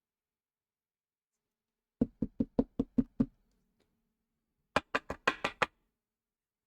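Two quick runs of sharp knocks on a hard surface: about seven evenly spaced knocks, a short pause, then about six faster ones.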